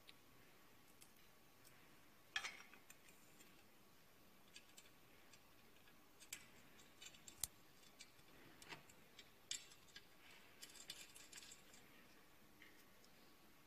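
Faint, scattered clicks and taps of steel parts being handled: the air bike's tubular handle arm being fitted onto its pivot, with a few small metal clicks from bolts, a short cluster of them near the end.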